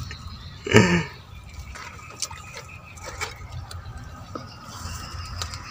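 A person's short voiced exclamation about a second in, followed by faint scattered ticks and rustles.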